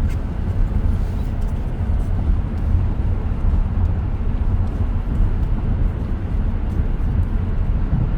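Steady tyre and road noise inside a 2023 Tesla Model X's cabin while driving at highway speed: an even, low-pitched noise with no engine note.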